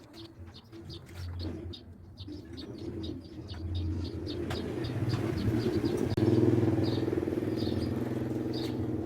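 A low, steady motor-like hum that grows louder and steps up about six seconds in, with a bird chirping over it about three times a second.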